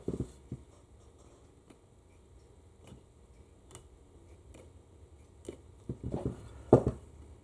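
Scattered light clicks and taps of small hand tools against a transmission valve body as a stuck valve part is worked out of its bore, with the loudest click near the end.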